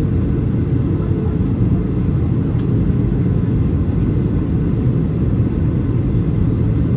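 Steady low rumble of cabin noise inside a Boeing 737-800 in flight, heard from a window seat: the CFM56 engines and rushing airflow.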